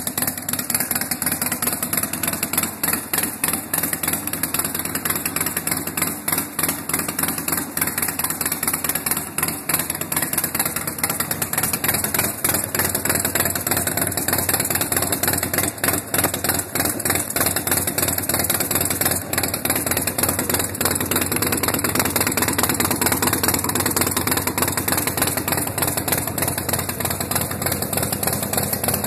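2003 Harley-Davidson Night Train's Twin Cam 88B V-twin idling steadily through its short dual exhaust pipes.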